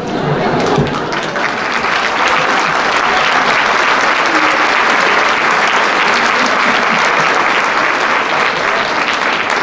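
Theatre audience applauding: the clapping swells quickly in the first second, then holds steady and full.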